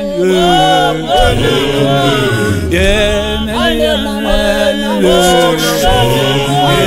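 Zionist church choir singing in Zulu, several voices in harmony, the sung phrases rising and falling and breaking about every second.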